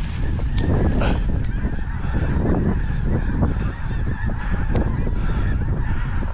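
A large flock of snow geese calling continuously, with many honks overlapping into a steady din.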